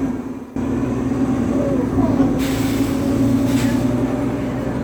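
Nova Bus LFS transit bus heard from inside, its engine drivetrain giving off a loud, steady droning hum, the odd engine sound the rider noticed. A hiss joins in about two and a half seconds in and lasts about a second.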